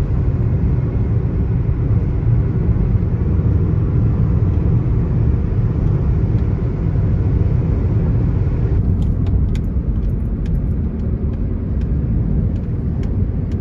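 Road and engine noise inside the cabin of a moving car: a steady low rumble. About nine seconds in the sound changes slightly, and light clicks come through now and then.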